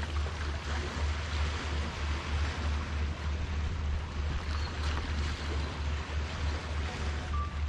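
Wind buffeting the microphone in a steady low rumble, over a continuous hiss of wind and small waves at the shoreline.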